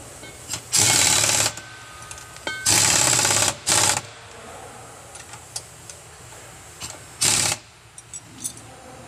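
Pneumatic impact wrench hammering in four short bursts, running bolts back in as the transfer case and its attached parts are refitted.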